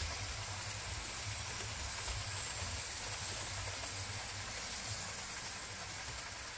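Model train running along the layout track: a steady low rumble with a high hiss over it.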